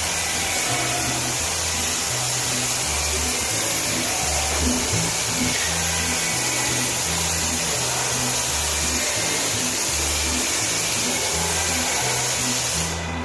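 Paint spray gun hissing steadily while shooting metallic blue base coat, then cutting off near the end when the trigger is released. Background music with a steady bass beat plays underneath.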